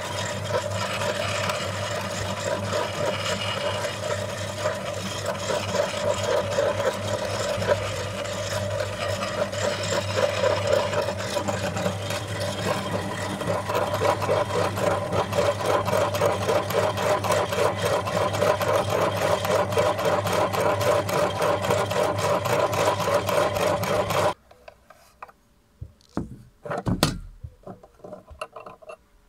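Aluminium meat grinder running steadily with a constant hum, grinding Oreo cookies into crumbs with a rasping, rubbing texture. It stops abruptly near the end, followed by a few metal clinks and knocks as the grinder's ring, cutting plate and blade are taken off.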